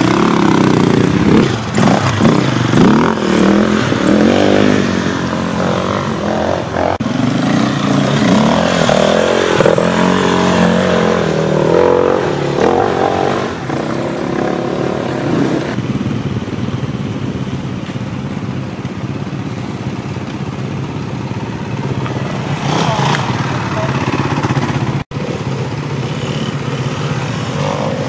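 Off-road dirt bike engines revving hard and falling back, the pitch rising and dropping repeatedly as the bikes pick their way over forest trail. About halfway through the engine sound settles into a steadier, quieter run.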